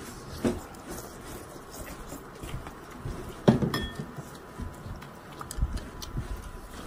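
Utensils knocking and clinking against dishware during a meal, a few scattered strokes. The loudest comes about three and a half seconds in and rings briefly.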